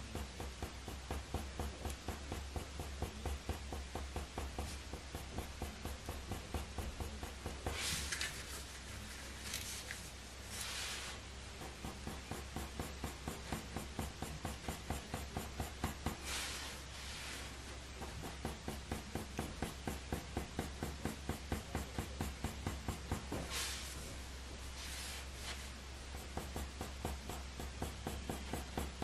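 Faber-Castell Polychromos coloured pencil drawn in quick short strokes across hot-press watercolour paper, a rhythmic scratching at about three strokes a second, with a few brief bursts of louder hiss between.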